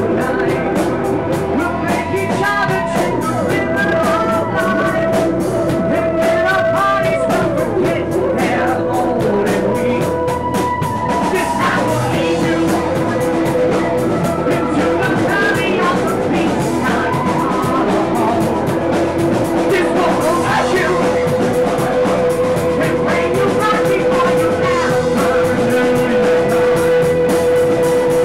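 Rock band music with a steady drum beat and long held notes over it.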